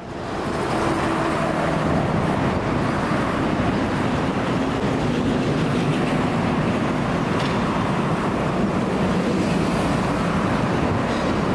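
Steady road traffic noise from cars and trucks on a multi-lane road, fading in over the first second and then holding even.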